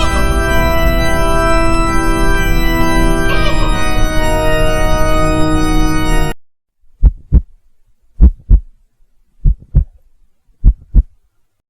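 A sustained organ chord, changing about three seconds in, cuts off suddenly. It is followed by a slow heartbeat sound effect: four low double thumps, lub-dub, about a second and a quarter apart.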